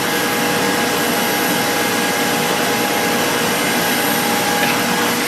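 Steady whirring machine noise with a constant hum, like a motor-driven blower running.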